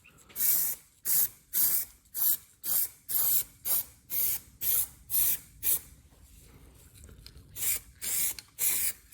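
Aerosol spray-paint can sprayed in short hissing spurts, about two or three a second. Then a pause of about a second and a half, and four more spurts near the end. The short bursts are the paint being dabbed along the edges of the light holders.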